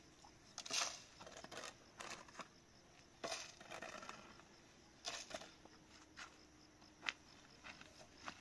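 Faint, irregular rustles and sharp clicks spaced about a second apart, like things being handled or crumpled.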